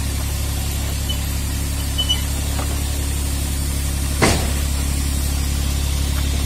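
IHI mini excavator's diesel engine running steadily as the machine tracks forward off a truck bed, with one sharp clank about four seconds in.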